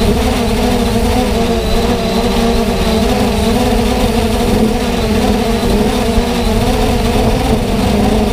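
Multirotor drone's electric motors and propellers running steadily in flight, a hum of several pitched tones that waver slightly in pitch, over a low rumble, picked up by the camera on board.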